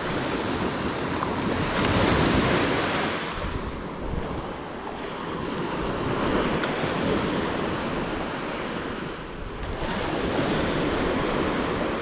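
Sea waves washing up on a beach, the surf swelling about every four seconds, with wind on the microphone.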